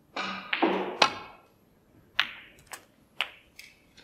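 Snooker cue tip striking the cue ball about a second in, followed by four sharp clicks of the balls colliding and knocking off the cushions, a shot in which a red is potted and the cue ball runs on out of control.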